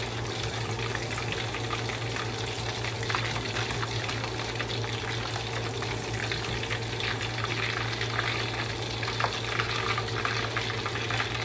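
Marinated chicken pieces deep-frying in hot oil: a steady sizzle full of constant fine crackles and pops, over a low steady hum.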